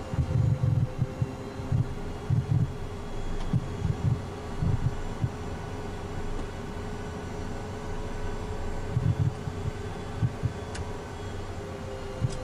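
Inside the cockpit of a taxiing Citation twin-jet: the engines run steadily at idle with a constant whine, and irregular low thumps come in clusters during the first half and again near the end.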